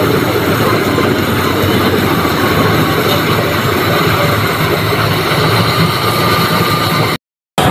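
Tractor-mounted combine harvester on a John Deere 5075E, its diesel engine and threshing machinery running steadily under load while harvesting paddy. The sound drops out to silence for a moment near the end.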